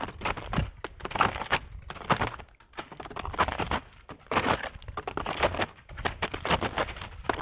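Snowshoe footsteps crunching in snow, in a steady walking rhythm of about one step a second.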